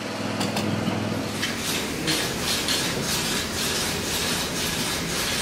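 Tangye vertical stationary steam engine running, its steam giving a steady, regular hissing chuff about three times a second. In the first second or so this is preceded by a steady machine hum.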